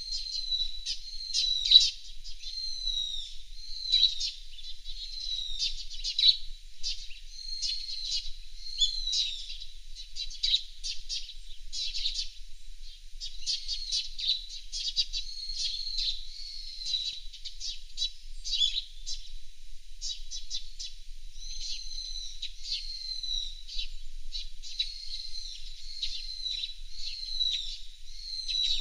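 Fairywrens calling: a dense, continuous run of high-pitched chirps and short falling notes, with quick sharp ticks between them.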